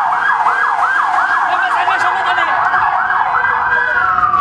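Ambulance siren sounding in a fast yelp, its pitch sweeping up and down about three times a second; near the end it breaks into one long falling tone.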